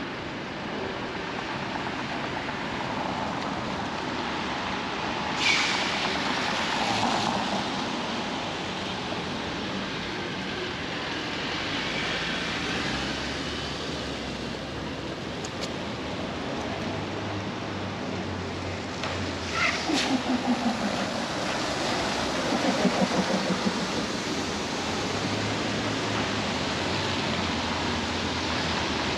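Steady rain hiss and city traffic on wet streets. A vehicle's tyres swish past about five seconds in, and around twenty seconds in a heavier vehicle goes by, its engine note falling as it passes.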